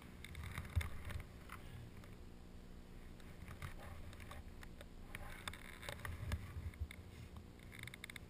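Faint low rumble with scattered light knocks and rattles while riding a chairlift.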